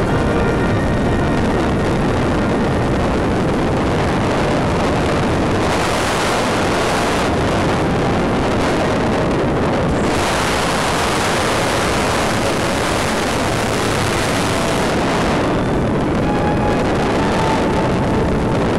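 Loud rushing wind noise on the on-board microphone of an RC Wot 4 model aeroplane in flight. The hiss swells and eases in stretches as it flies, with faint steady tones near the start and again near the end.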